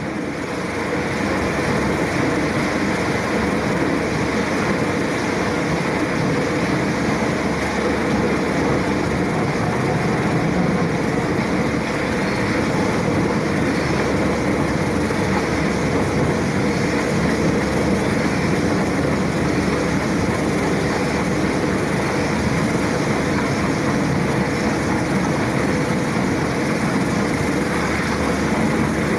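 Museum-preserved Morgan-type feathering paddle wheel with iron paddles, turned by an electric motor. It runs steadily, giving an even, continuous mechanical noise.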